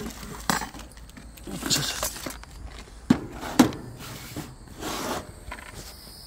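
Tools and cloth being rummaged through and handled in a plastic basket: irregular rustling and scraping, with two sharp knocks about three seconds in.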